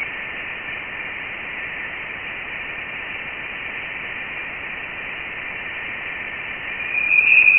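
Voyager 1 plasma-wave data turned into audio: steady radio-like static hiss with a faint high tone running through it. About seven seconds in, the tone gets louder and higher. The sound comes from vibrations in dense interstellar plasma (ionised gas) that the spacecraft recorded on nearing interstellar space.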